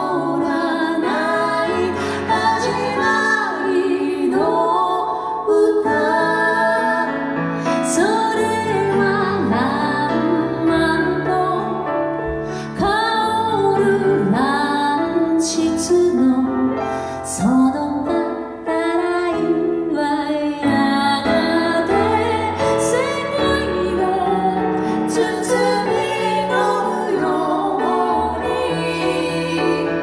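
A woman singing a song live with grand piano accompaniment.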